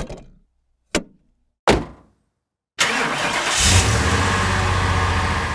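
Three sharp clicks, then about three seconds in the 1957 Porsche coupe's air-cooled flat-four engine starts and runs steadily and loudly.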